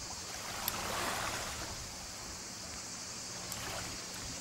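Small waves lapping on a pebble shore, swelling about a second in, over a steady hiss.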